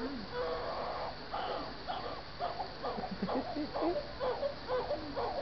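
Newborn baby crying softly in short, repeated cries, two or three a second.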